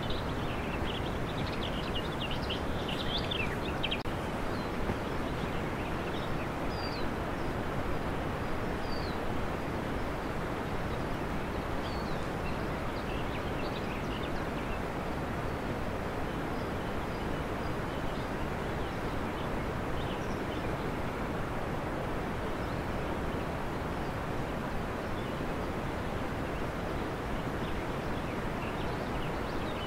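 Steady rushing noise with faint, short, high chirps scattered over it, busiest in the first few seconds.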